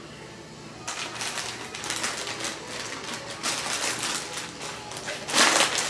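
Crinkling and rustling of a plastic bag or wrapper being handled: a run of quick crackles starting about a second in, with a louder burst near the end.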